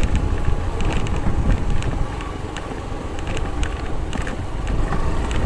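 Motorcycle riding on a rough dirt road: wind buffeting the microphone over the low rumble of the engine and tyres, with small rattles and ticks from the rough surface. The noise eases a little a couple of seconds in, then builds again.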